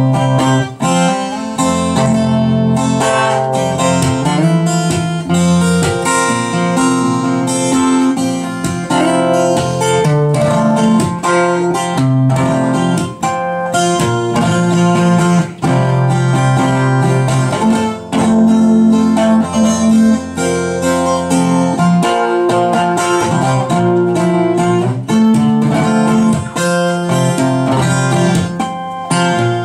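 Solo steel-string acoustic guitar played live: an instrumental piece of ringing chords and melody over sustained low bass notes.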